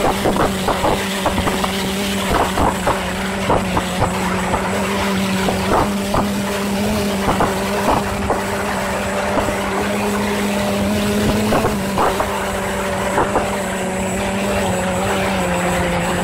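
A steady engine drone holding one pitch, dropping slightly near the end, with irregular sharp clicks and knocks over it.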